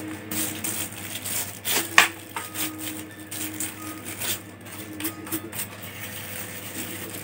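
A small brush scrubbing over a laptop's internal parts in short, repeated scratchy strokes, with one sharp tap about two seconds in.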